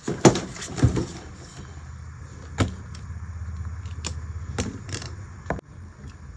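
Handling clicks and knocks on the welding machine's circuit board and test gear, about seven in all, over a low steady hum that cuts off with a click a little before the end.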